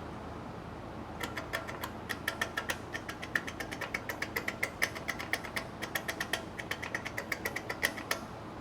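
A rapid run of small metallic clicks, about eight to ten a second with a light ringing tone, starting about a second in and stopping just before the end, over a steady shop hum.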